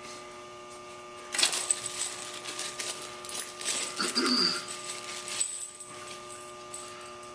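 Clinks and clatter of hard parts being handled, mostly in a burst from about one and a half to three and a half seconds in, over a steady electrical hum.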